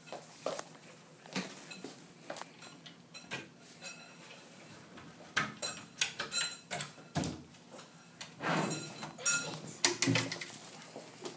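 A wooden cabinet being handled: a series of clicks and knocks as its doors are opened, then a drawer slid out with a short scraping rush and a knock, with light metallic clinks from the door and drawer hardware.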